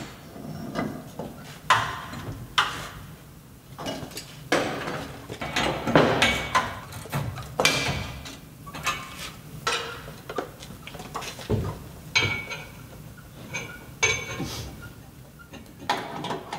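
Irregular metallic clinks, taps and knocks of hand tools and hardware worked on steel conduit fittings and a meter base, a few strikes ringing briefly near the end.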